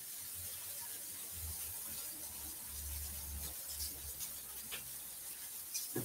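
Sesame-crumbed chicken tenders sizzling faintly in a frying pan, with several light clicks in the second half.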